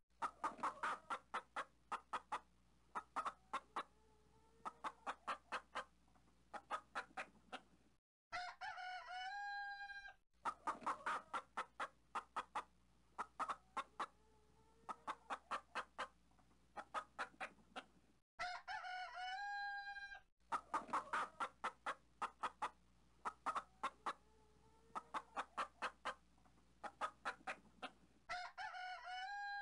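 Chickens clucking in quick runs of short clucks, with a rooster crowing three times, about every ten seconds. Each crow rises and then holds for a second or two, and the same pattern comes round again each time.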